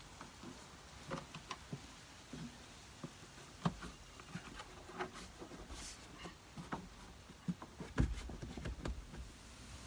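Scattered light clicks, taps and rustles of wiring being tucked behind a Jeep Wrangler's plastic interior trim panel and the panel being pressed back, the loudest a thump about eight seconds in.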